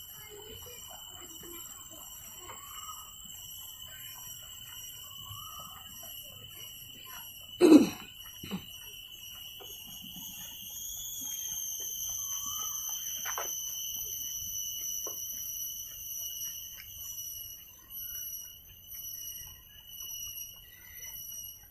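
Steady high-pitched insect drone, a shrill whine of several tones held together that rises slightly in pitch about halfway through. One sharp loud knock about 8 seconds in, with a few fainter clicks after it.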